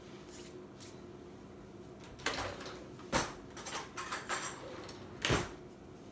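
Kitchen drawer and metal utensils clattering as a spoon is taken out: a few short knocks and clinks, with a brief rattle in the middle and the loudest knock near the end.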